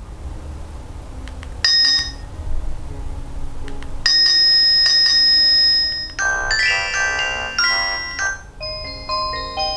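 Nokia 215 4G phone playing its ringtones and alert tones through its small speaker. A short electronic beep about two seconds in is followed by a held tone, then a quick run of electronic notes and a simple melody near the end.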